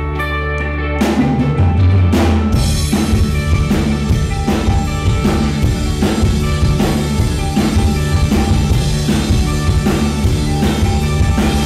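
Live rock band playing an instrumental passage: electric guitars with sustained low notes, joined about a second in by a drum kit keeping a steady beat.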